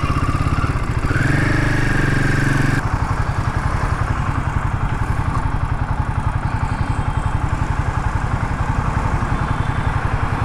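Royal Enfield Himalayan 450's single-cylinder engine running on the move, with a steady fast pulsing beat. Near the start a higher tone rises and holds for about two seconds over the engine.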